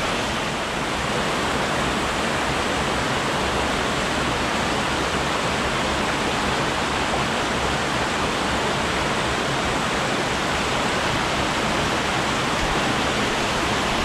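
A small mountain stream rushing over rocks and little cascades, a steady, even rush of white water.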